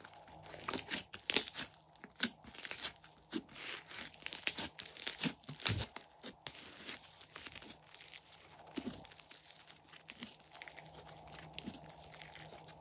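Crunchy slime with small foam beads being stretched, pressed and folded by hand: a run of sticky crackles and pops, busiest in the first half and thinning out later.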